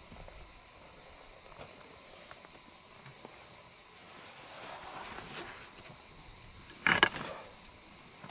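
A steady high chorus of insects, with a brief loud thump about seven seconds in as a heavy backpack is set down on the ground.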